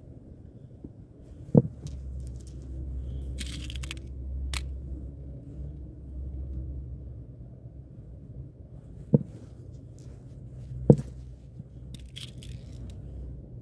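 Close handling noise from hands working gear right by the microphone: three dull thumps, the loudest about 11 seconds in, and a couple of short spells of light clicking and scraping, over a steady low rumble.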